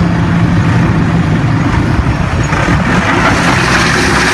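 Forklift engines running: a steady low drone under a broad hiss, the hiss growing louder about three seconds in as the Cat forklift moves off.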